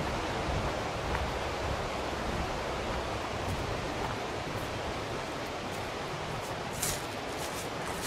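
Mountain river rapids rushing: a steady, even wash of whitewater noise. Near the end a few short, sharp high clicks stand out above it.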